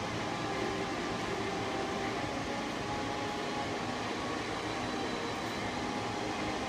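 Steady mechanical drone with hiss, the background hum of machinery or ventilation in a large, echoing industrial shed, holding an even level with no distinct knocks.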